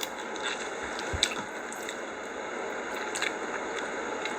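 Close-up eating sounds: soft wet mouth and squishing noises over a steady hiss, with a few small clicks.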